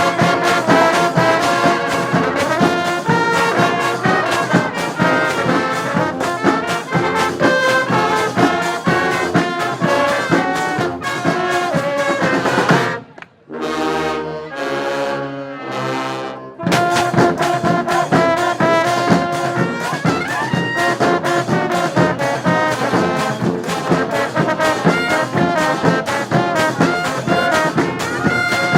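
Brass band playing an up-tempo tune, horns over a driving drum beat. About 13 seconds in the drums stop and the horns hold a few long chords for about three seconds, then the full band comes back in.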